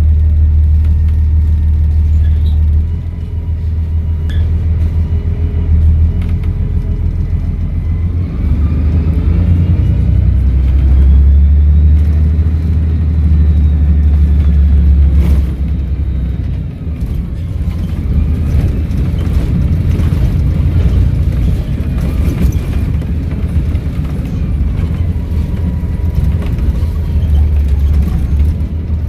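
Volvo B7RLE bus diesel engine running with a heavy low rumble, pulling and easing off twice. Over it, a whistle rises in pitch from about eight seconds in: the turbocharger spooling up.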